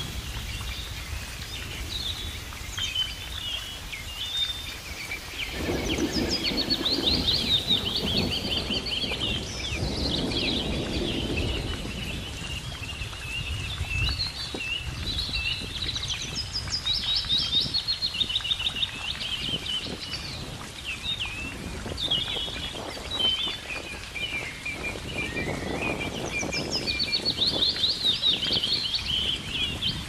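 Several birds singing and calling, with many rapid trills and chirps, over a low rushing background that swells twice.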